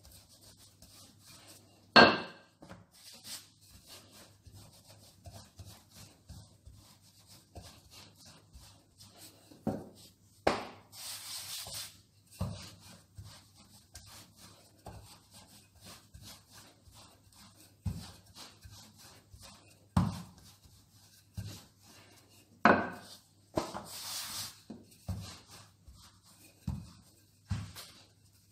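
Wooden rolling pin rolling out pastry dough on a floured granite counter: soft rubbing and rolling with a few sharp knocks of the pin against the stone, the loudest about two seconds in, and a couple of brief swishes.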